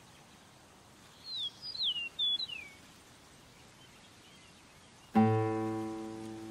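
A bird gives a few short, falling chirps over faint outdoor ambience. About five seconds in a piano chord is struck and rings, slowly fading.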